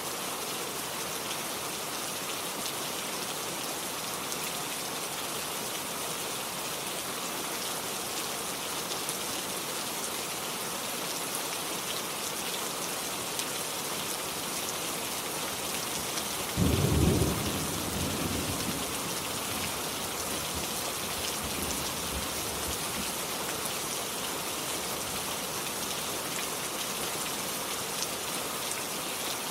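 Steady rain falling, with a sudden clap of thunder a little past the middle that rumbles off over a few seconds.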